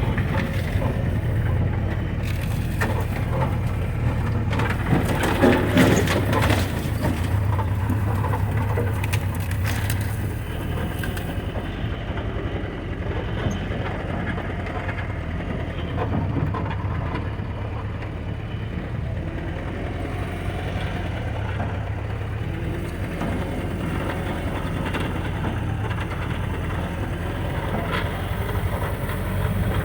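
An old Jeep's engine running steadily while it drives slowly off-road over rough ground. Sagebrush scrapes and crunches against the body, with knocks from the bumps, heaviest in the first several seconds.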